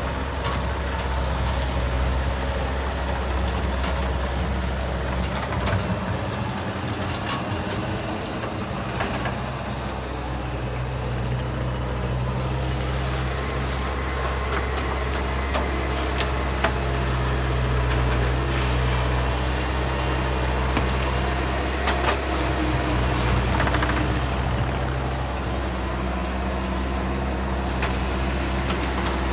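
Bobcat skid steer's diesel engine running steadily under working load, its pitch rising and falling a little, with scattered sharp cracks and snaps from the trees it is working.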